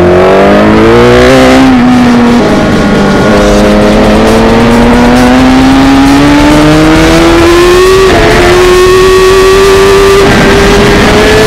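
Onboard sound of a Suzuki GSX-R1000's inline-four engine under race acceleration: the pitch rises, drops sharply at an upshift about two seconds in, then climbs slowly and steadily through a long pull, with a brief dip about eight seconds in.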